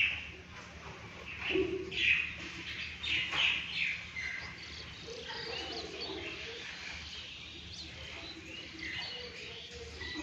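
Small birds chirping, with a few louder calls about two and three seconds in.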